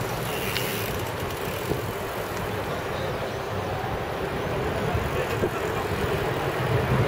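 Steady city street traffic noise with a low rumble, growing louder toward the end.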